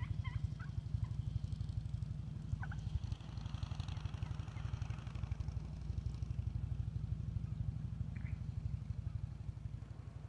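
Wild turkeys calling: a quick run of repeated calls in the first second, then single short calls a couple of times later, over a steady low rumble.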